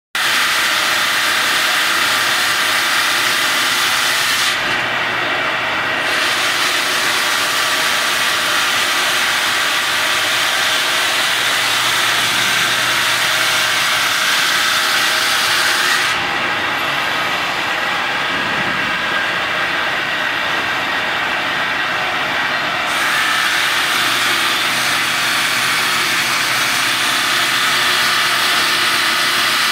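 Automatic stone profiling machine with twin diamond circular saw blades cutting wet stone slabs: a steady, loud grinding hiss with a high whine from the blades. The sharpest top end of the hiss falls away briefly about five seconds in and again for several seconds in the middle.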